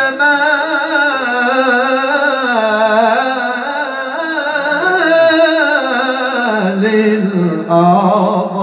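A man's solo voice singing a Moroccan madih, a sung praise of the Prophet, drawing out a long melismatic phrase with wavering ornaments. The line falls in pitch toward the end, and a new phrase starts near the end.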